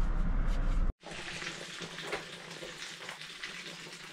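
A steady low rumble cuts off about a second in. It gives way to the soft, even hiss and patter of a light drizzle falling.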